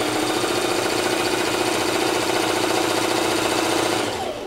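Electric sewing machine running at a steady high speed, stitching a seam through tulle; it slows and stops just before the end.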